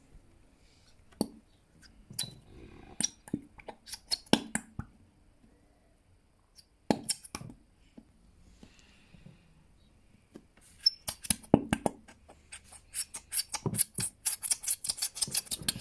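Plastic Elmer's glue bottle being squeezed and knocked to get the last of the glue out into the bowl: scattered clicks and knocks, then a quick run of rapid clicks near the end.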